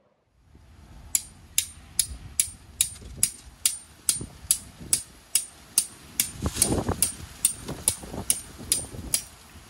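A steady, evenly spaced clicking beat, about two and a half sharp clicks a second, over a low rumble; it all stops abruptly near the end.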